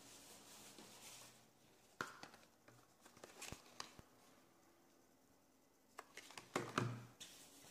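Faint handling noises of a cardboard toothpaste box being picked up and held out: soft clicks and rustles about two seconds in, a few more around three seconds, and the loudest cluster near the end.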